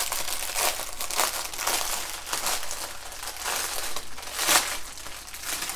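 Clear plastic wrapping crinkling and crackling as hands pull it open around a bundle of bagged diamond-painting drills, with a louder crackle about four and a half seconds in.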